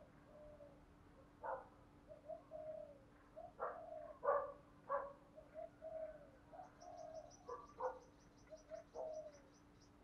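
Spotted dove cooing over and over: low coos broken by sharper, accented notes, the kind of calling used to lure wild doves. A faint, rapid, high ticking runs alongside from a little past halfway to near the end.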